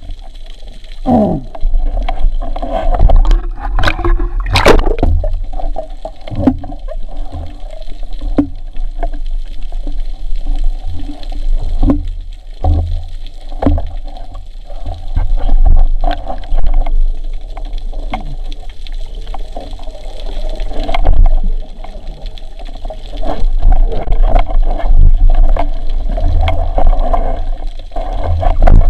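Water gurgling and sloshing as a spearfisher swims, with scattered knocks and clicks and a short rising gurgle about a second in.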